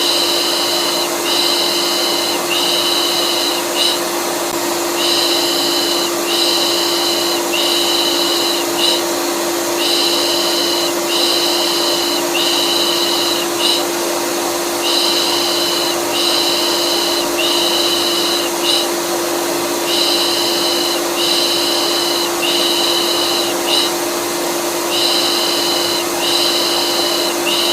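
Vacuum cleaner motor running with a steady hum. Over it a looped 'pış pış' baby-soothing shush repeats in groups of three long shushes and one short one, about every five seconds, as white noise to calm a colicky baby.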